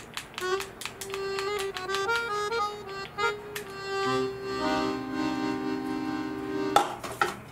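Background music: a comical accordion solo with short, bouncing notes, the held notes fluttering from about halfway through. A couple of sharp clicks near the end are the loudest moments.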